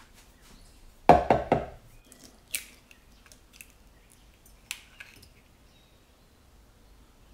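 A raw egg rapped three or four times in quick succession against the rim of a glass bowl to crack it open, then a few light clicks of eggshell as the yolk is held back in the shell and the white is separated into the bowl.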